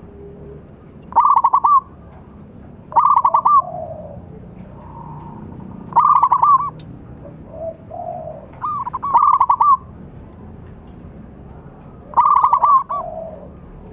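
Zebra dove (perkutut) cooing: five bursts of its rapid, rolling coo, each under a second long and a few seconds apart, with softer, lower coos between them.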